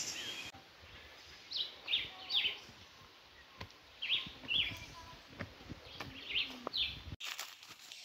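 A bird calling in short, high chirps that fall in pitch, mostly in pairs, repeating every couple of seconds, over the scuff of footsteps on a rocky trail.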